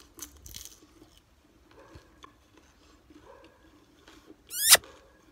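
A crispy pizza golgappa (puri shell) crunching in a bite, followed by quiet chewing and a couple of faint hums. About four and a half seconds in, a loud, brief, rising whistle-like glide.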